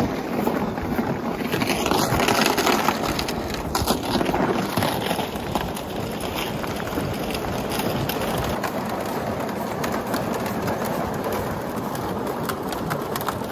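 Boots crunching over snow-dusted lake ice while a gear sled is dragged across it behind on ropes, a steady crunching and scraping.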